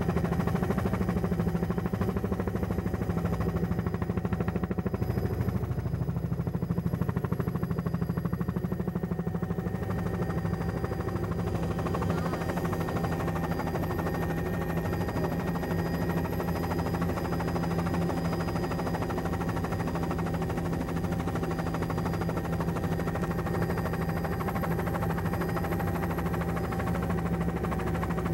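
Helicopter running steadily, heard from aboard: a constant low engine and rotor drone with a fast, dense pulsing.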